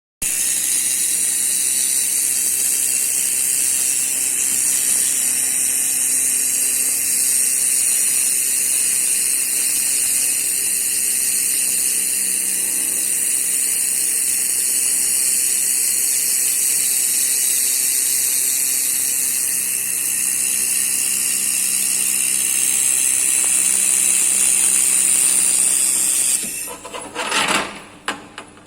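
Laser pipe welding machine running: a steady high hiss over a low mechanical hum that cuts off about two seconds before the end, followed by a few short uneven bursts.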